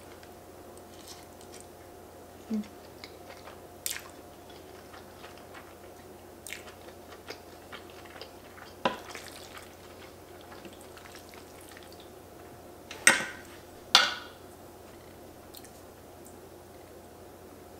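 Close-up chewing of a mouthful of fettuccine, with small wet mouth clicks, over a faint steady hum. Near the end come two sharp clinks about a second apart, the loudest sounds here, as a metal fork and spoon are set down on a ceramic plate.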